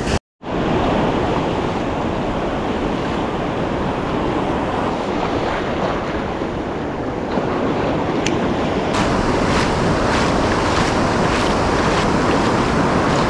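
Ocean surf washing steadily onto the beach, with wind on the microphone. The sound cuts out for a moment near the start, and faint regular ticks come in over the second half.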